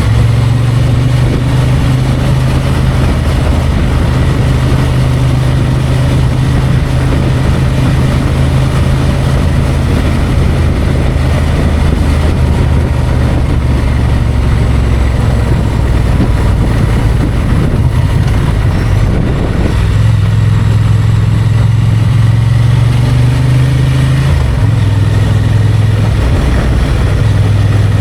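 Honda XL750 Transalp's 755 cc parallel-twin engine running at fairly steady, low revs while riding, its pitch stepping up and down a few times in the last third.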